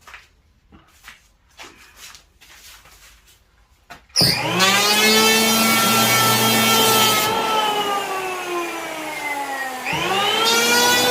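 A few light taps and clicks, then about four seconds in a high-speed electric carving tool starts with a loud whine. It cuts into pine for relief carving, its pitch sinking slowly under the load, dipping sharply near ten seconds and then climbing again.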